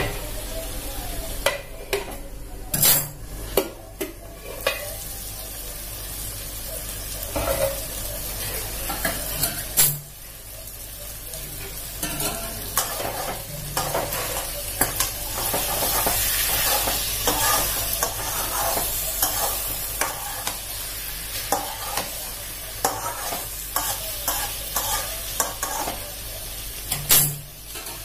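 Chicken and banana-stem curry sizzling in a wok, stirred with a bamboo spatula that scrapes through the food and knocks sharply against the pan a few times.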